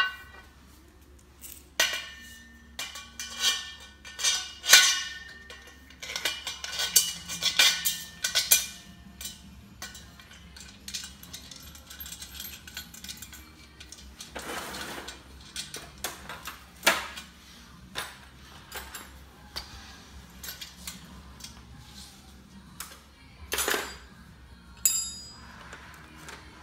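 Steel parts of a table-tennis-table frame clinking and knocking as a bolt, washers and nut are fitted and tightened on a square-tube crossbar. The clinks are sharp and irregular, busiest in the first nine seconds or so, with a few single knocks later.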